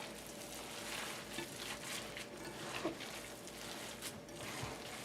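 Hands squishing and kneading a wet ground-beef mixture in a bowl, with soft irregular squelching and crackling as the egg, milk and breadcrumbs are worked into the meat.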